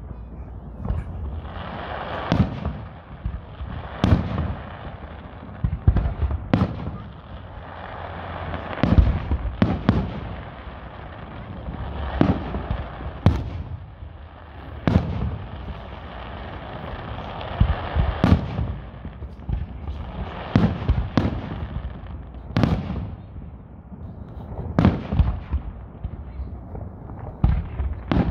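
Aerial firework shells going off in a display: a string of sharp bangs, irregular and roughly every one to two seconds, with a steady rushing noise between them.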